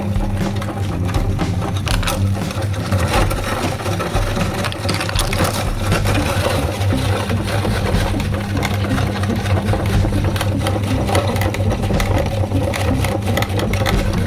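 Meat grinder's motor running with a steady hum, with rapid crackling and clicking from hard candy being crushed and ground through it.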